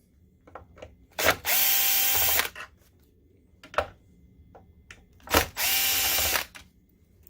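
Cordless screw gun backing out small screws: two short runs of its motor, about a second each, one about a second in and one near the end, each starting with a click, with a few light clicks between.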